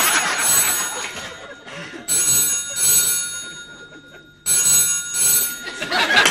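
Telephone bell ringing in repeated rings: one stops just after the start, then two more start sharply about two seconds and four and a half seconds in, each lasting a second or so.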